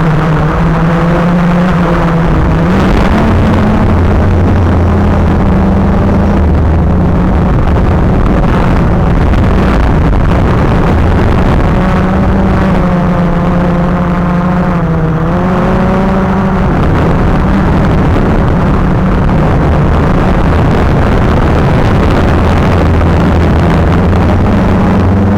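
Quadcopter's electric motors and propellers whirring in flight, their pitch rising and falling with the throttle, with a marked dip about two-thirds of the way through.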